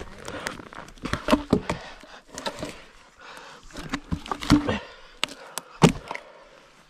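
Wooden knocks and snaps of sticks and logs being handled and knocked together, a string of short sharp hits at irregular intervals.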